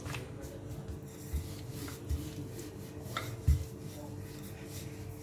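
Hands rubbing and handling oiled parotta dough on a work surface: soft rubbing with a few light knocks, the loudest about three and a half seconds in, over a steady faint hum.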